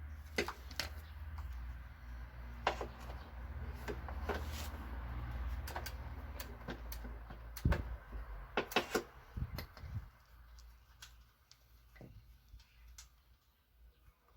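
Scattered clicks and knocks, as of handling tools or parts, over a low rumble that dies away about ten seconds in, leaving only a few faint clicks.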